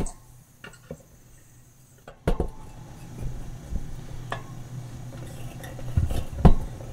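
Steel wire spokes clinking and scraping against the metal hub flange of a spoked motorcycle wheel as they are worked through its holes by hand, with a sharper knock about two seconds in and a couple more near the end.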